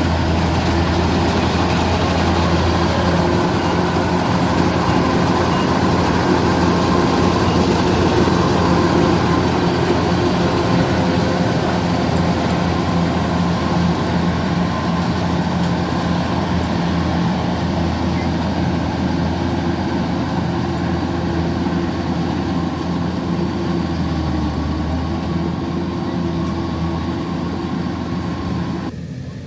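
Kubota DC105X combine harvester's diesel engine and machinery running steadily as it harvests rice, an even, continuous hum. The sound drops off abruptly right at the end.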